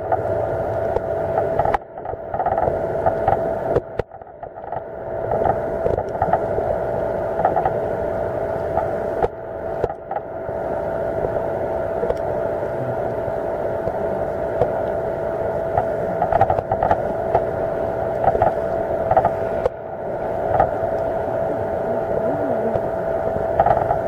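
A boat engine's steady drone heard through the water: a constant whine over a hiss, with scattered faint clicks.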